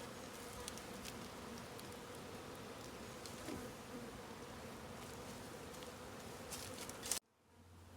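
Swarm of honeybees from a newly installed package buzzing around and into the hive: a steady, many-winged hum. It cuts off abruptly near the end.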